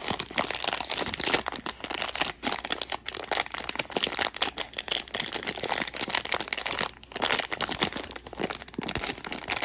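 Thin plastic blind-box wrapper bag being crinkled and pulled open by hand: a dense, continuous crackling rustle, with a brief pause about seven seconds in.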